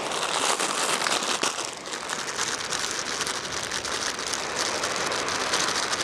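Iberico pork and cut onion frying in a frying pan over a Coleman gasoline single burner: a steady crackling sizzle.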